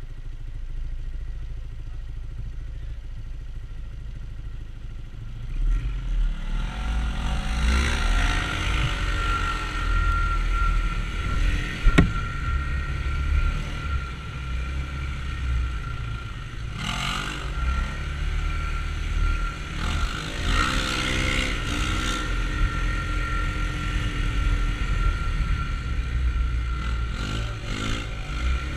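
Side-by-side UTV engine running, low and even at first, then revving with rising and falling pitch from about six seconds in. A sharp knock comes about twelve seconds in, with bursts of clatter later.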